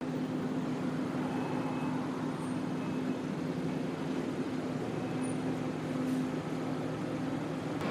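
Steady city traffic noise with a constant low engine hum from a nearby vehicle.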